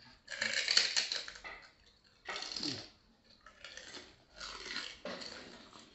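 Crisp pani puri shells being bitten and chewed, in about five separate bursts of crunching, the first and longest over a second.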